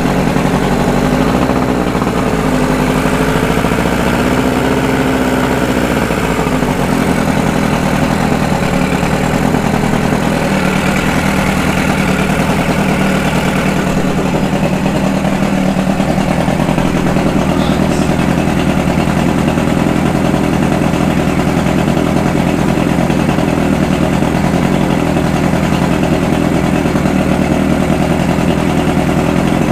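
Mercury 50 hp two-stroke outboard running steadily on a test stand with its cowling off, its note shifting slightly about six and fourteen seconds in: a used motor that starts and runs.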